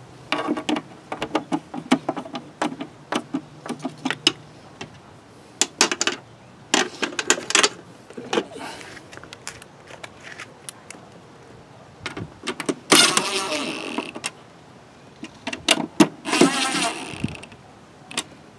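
Cordless impact driver whirring in two short bursts about three seconds apart, running a plastic airbox cover's screws in. Before that come runs of sharp clicks and rattles from hand tools and the cover.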